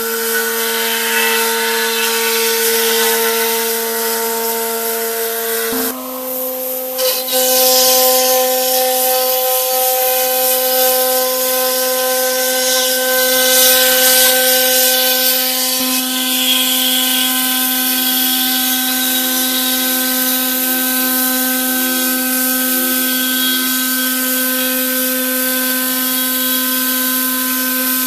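CNC router spindle running with its bit cutting plywood: a steady whine over a loud hiss of cutting. The pitch steps up slightly about six seconds in.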